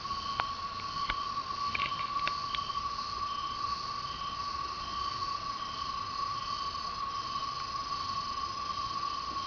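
Cicadas humming steadily at night in a continuous high-pitched drone. A shorter call repeats about every two-thirds of a second over the top, and a few sharp clicks come in the first three seconds.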